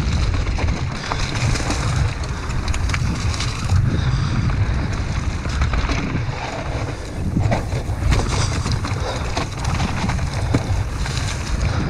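Wind buffeting an action camera's microphone during a fast mountain-bike descent, with the tyres rolling over dirt and leaves and the bike rattling and clicking over bumps in the trail.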